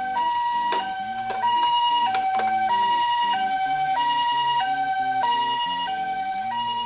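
Toy ambulance miniature car's electronic siren playing the Japanese two-tone 'pee-po' ambulance pattern, a high and a lower tone alternating about every two-thirds of a second. A few sharp clicks from the toy car come about one and two seconds in.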